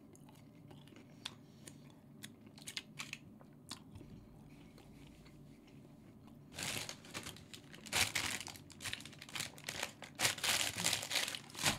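Faint chewing of a mozzarella bite with soft mouth clicks, then a McDonald's paper bag rustling and crinkling in repeated bursts from about six and a half seconds in.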